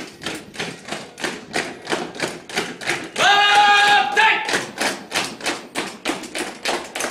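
A squad of soldiers marching in step, their boots striking stone paving in a steady quick tramp. About three seconds in, one of them shouts a drawn-out drill command, held on one pitch for about a second.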